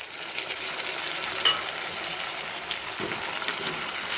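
Chopped onion, garlic and tomato frying in sesame oil in a pan: a steady sizzle with scattered clicks of a stirring spoon, and one sharp click about one and a half seconds in.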